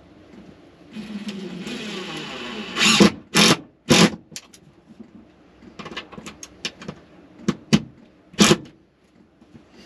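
A DeWalt cordless impact driver drives a screw through a plastic bracket into wood paneling. It runs steadily for about two seconds starting a second in, then fires a series of short, loud trigger bursts spread over the next five seconds as the screw is seated.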